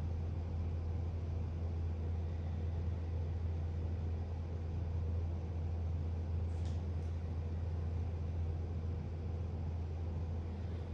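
Steady low hum under a faint even hiss, with a brief faint high rustle about six and a half seconds in.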